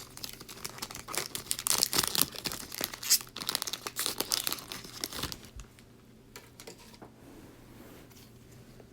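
Crinkling and tearing of a trading-card pack's wrapper being handled and opened, busy for about five and a half seconds, then only faint handling clicks.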